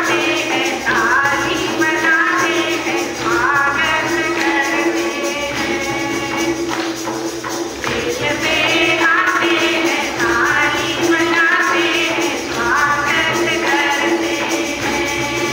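A group of women singing a church welcome song through a microphone, phrase after phrase, over a steady held note and a rhythmic percussion accompaniment.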